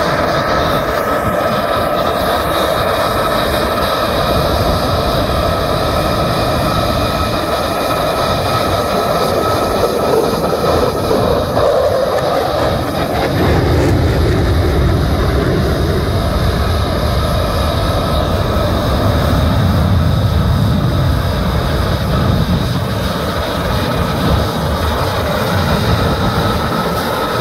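Two F-35s' Pratt & Whitney F135 turbofan engines running, a steady whine of several tones over a loud rumble. The low rumble grows stronger about 13 seconds in.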